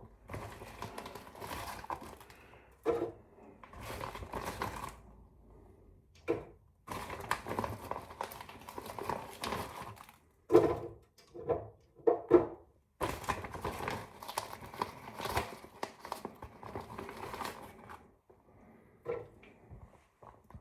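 Food packaging being handled and crumpled, in bouts of crinkling broken by short pauses, as the empty packet is emptied out.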